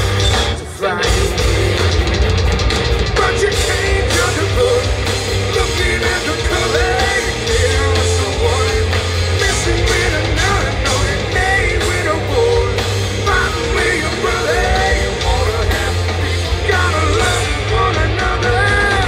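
Hard-rock band playing live through a PA, heard from the crowd: distorted electric guitars, bass and drums with a sung lead vocal. The sound drops out briefly just under a second in.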